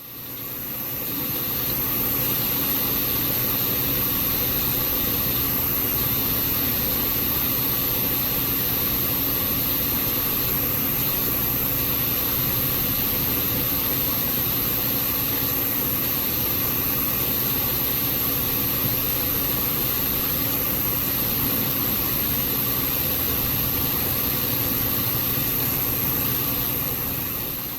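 Hard disk drive making an abnormal running noise: a steady hum with a thin high whine over it. The owner suspects it is tied to the PC's frequent freezes.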